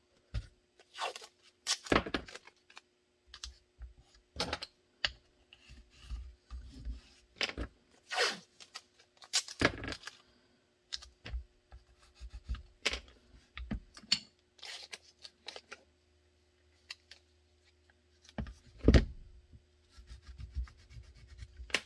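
Blue painter's tape being pulled off the roll, torn and rubbed down by hand over the blocking on a pistol and its flashlight, in irregular bursts of ripping and rubbing over a faint steady hum. A single heavier thump comes near the end.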